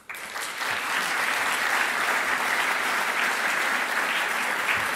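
Audience applauding, starting suddenly at the close of a speech and holding steady.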